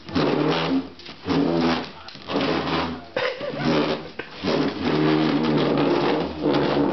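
A string of loud, low, buzzy animal calls, each about half a second to a second long, repeating with short gaps throughout.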